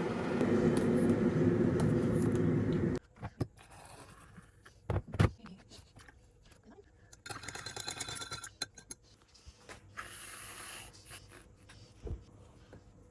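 Music from a television programme for about three seconds, cutting off abruptly. Then a quiet room with scattered small knocks and rustles.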